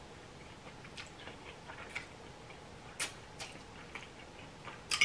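Close-up eating sounds: ramen noodles being chewed, with small wet mouth clicks and a sharp click about three seconds in. Near the end a fork clinks and scrapes on the plate while twirling noodles.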